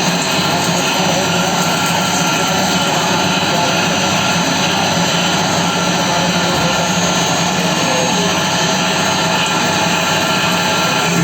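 CNC machine running with a steady mechanical whine: a constant hum and several held tones over a dense noise, unchanging throughout.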